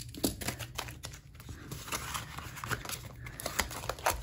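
Paper banknotes and cash envelopes being handled and counted, rustling in many short, irregular crinkles.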